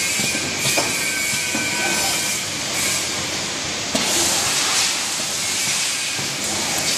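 Automatic face-mask cartoning machine running: a continuous mechanical clatter with a strong hiss, and sharp clicks about a second in and again about four seconds in.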